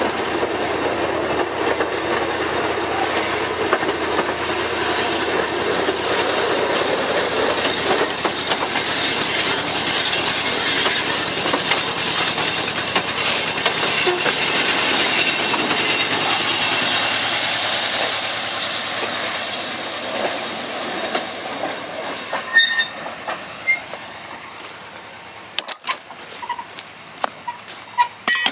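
Narrow-gauge train rolling through a rail yard, its wheels clattering over the rail joints and switches, dying away about twenty seconds in. A few sharp knocks follow near the end.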